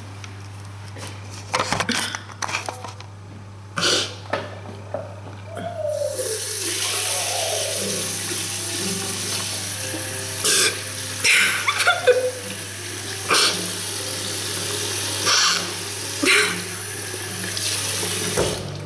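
A girl crying, with short sniffles and sobs; about six seconds in a water tap starts running steadily at a washroom sink and runs on under her sobs until near the end.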